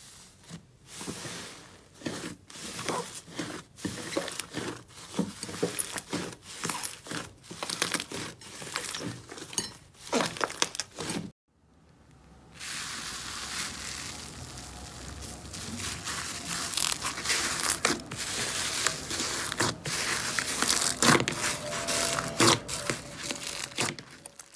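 Slime being pressed and squished by hand. First come quick sticky pops and squelches. After a short break, a foamy, bubbly slime being kneaded gives a steady crackling hiss with sharper pops.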